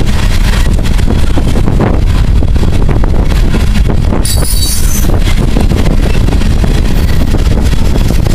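Loaded coal hopper cars rolling past close by, a steady heavy rolling noise of steel wheels on rail, with wind buffeting the microphone. A brief high squeal about four seconds in.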